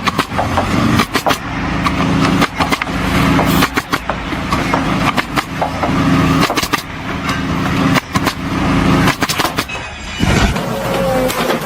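An engine running, with frequent sharp knocks and clatter over it; about ten and a half seconds in the sound changes to a steadier hum with a thin whine.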